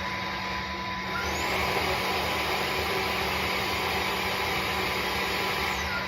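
Tineco Floor ONE S5 wet-dry vacuum mop running its self-cleaning cycle in the dock, washing the brush roller: a steady motor whir that speeds up with a rising whine about a second in and winds back down near the end.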